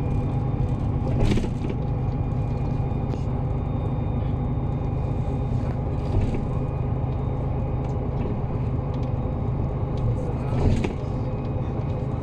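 Inside a moving Solaris Urbino 18 articulated city bus: its DAF diesel engine running with a steady low drone over road rumble. Brief knocks sound about a second in and again near the end.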